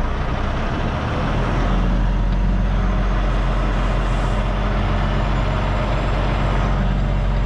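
Kenworth semi-truck's diesel engine running at low speed while backing a trailer, a steady low rumble that grows a little stronger about a second and a half in.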